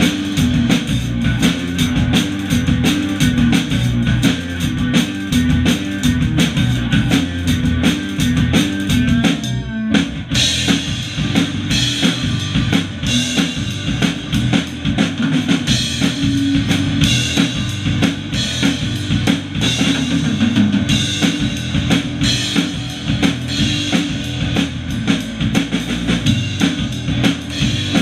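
Three-piece rock band playing without vocals: drum kit with steady kick, snare and cymbals, with electric bass and electric guitar. About ten seconds in, the cymbals and guitar drop out for a moment before the band comes back in.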